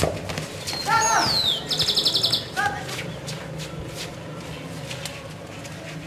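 A small songbird singing: a clear high whistle falling in pitch about a second in, followed by a fast, even trill. Two short lower calls come around it, over a low steady hum.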